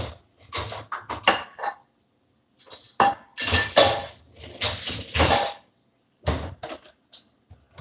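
Dishes, pots and utensils clattering and clinking as they are handled, in several bursts with short pauses between them.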